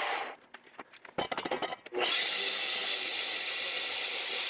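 An electric power tool running with a steady, hissing noise, winding down just as it stops. A quick run of sharp knocks and clicks follows, then the tool starts again about two seconds in and runs steadily.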